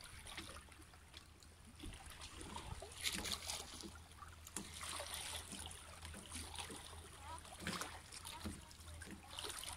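Faint lapping of calm sea water in the shallows among shore rocks, with a few light knocks scattered through it.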